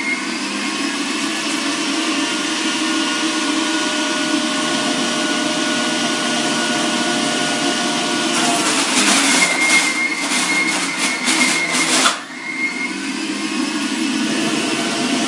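Breville centrifugal juicer motor running steadily on high. From about eight seconds in, a carrot pushed down the feed chute is shredded with a rough, rattling grinding for about four seconds, then the motor runs on evenly.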